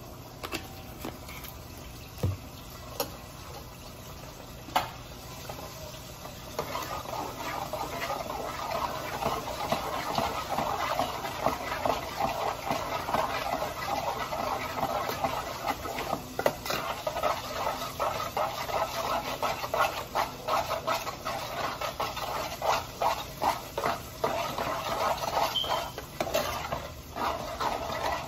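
A metal spoon stirring food in a metal cooking pot, with scattered clinks against the pot. From about six seconds in a steady cooking hiss joins it, under rapid scraping and clinking from continuous stirring.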